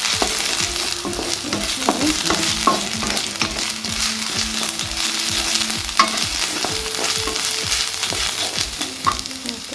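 Onions, green chillies and curry leaves sizzling in hot oil in a pan, with ginger-garlic paste just added, while being stirred; a utensil clicks sharply against the pan a few times.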